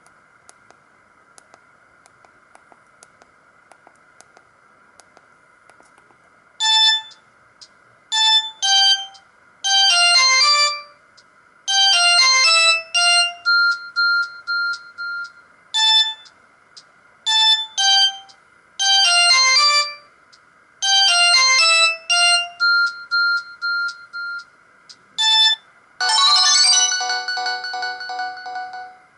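Samsung GT-E2120 mobile phone playing one of its stock ringtones through its small loudspeaker: short melodic phrases of bright synth notes, repeated with pauses between them. It starts about seven seconds in after faint hiss and hum, and a denser, fuller passage takes over near the end.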